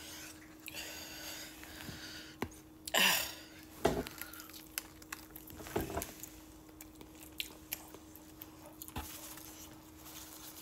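A person eating from a cardboard food box: chewing, with a metal fork clicking against the food and box several times and a loud breath about three seconds in. A paper napkin rustles near the end.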